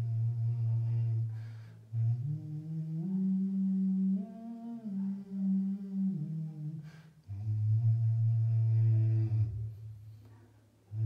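A man humming long held notes in a cave chamber built as a sound room. He holds a low note, rises to a higher, wavering note about two seconds in, and drops back to the low note around seven seconds before it fades out near the end.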